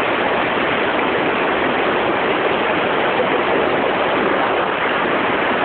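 Rushing water of a fast-flowing stream tumbling over rocks below a waterfall, a steady, unbroken rush.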